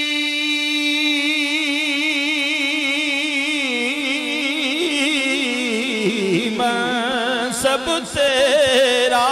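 Male voice singing a Punjabi naat, holding a long wavering note that sinks in pitch around the middle, with a new held note taken up near the end.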